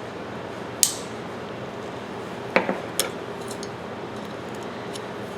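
Sharp metal clinks as steel parts of a pipe wrench and tools knock together during disassembly: three quick clicks, the middle one doubled, over a steady background hiss.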